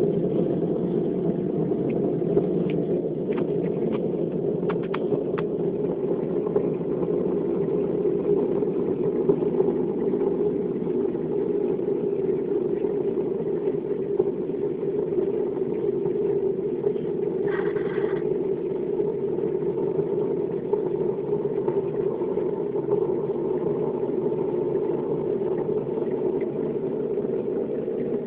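Unidentified steady, low droning hum that holds without change, presented as a mysterious 'strange sound' heard at night. A few faint clicks come between about two and five seconds in, and a brief hiss about seventeen seconds in.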